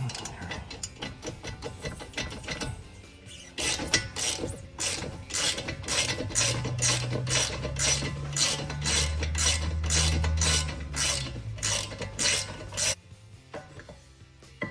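Hand ratchet clicking in quick, even strokes, about three clicks a second, turning an 11 mm Allen socket to back out a front brake caliper bolt. The clicking starts a few seconds in and stops about a second before the end.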